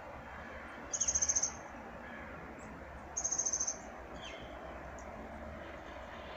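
A small bird gives two short, very high, rapid trills about two seconds apart, with a few faint high call notes after them, over a steady background hiss.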